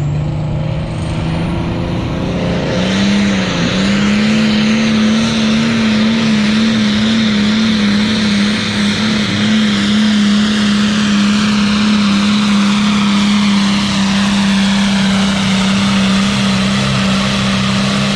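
John Deere 4430 pulling tractor's diesel engine running flat out under load as it hauls the pulling sled. Its note climbs about three seconds in, then holds high and steady.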